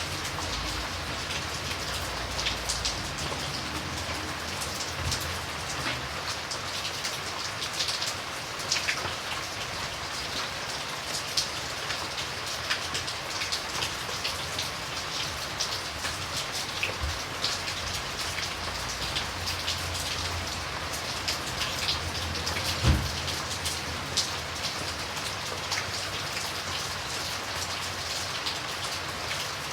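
Steady rain falling, with many individual drops ticking close by over the even hiss of the downpour. A single low thump stands out about three-quarters of the way through.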